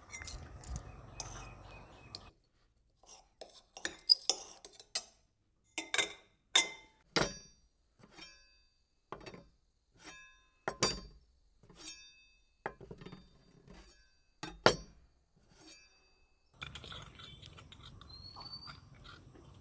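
Kitchen knife cutting a red onion over a stainless steel plate: irregular sharp metallic clinks as the blade knocks the plate, roughly one or two a second, several ringing briefly.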